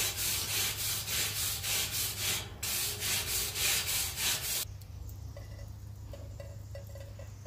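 A grill brush scrubbing a steel mesh grill grate in quick back-and-forth strokes, about two or three a second. The scrubbing stops about two-thirds of the way through.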